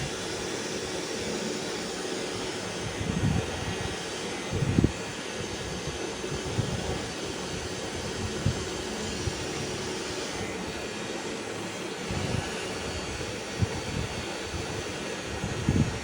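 A small motor running steadily, with a few brief low thumps.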